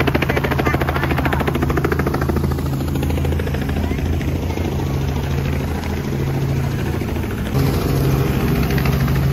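Robinson R44 helicopter running, its rotor giving a fast, even pulsing over a steady low engine hum. About three quarters of the way through, a louder steady motor hum comes in.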